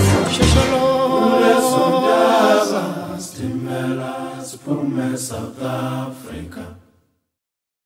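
A group of voices singing together in harmony, choir-style. It fades somewhat and then cuts off suddenly about seven seconds in, leaving silence.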